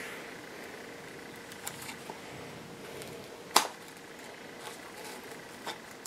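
Stuck-together square coasters being worked apart by hand: faint handling taps and one sharp click about three and a half seconds in.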